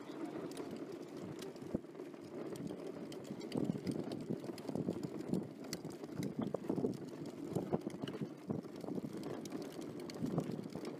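Footsteps of someone walking on a wet paved roadside, with irregular knocks and rustling from a bundle of fishing rods being carried.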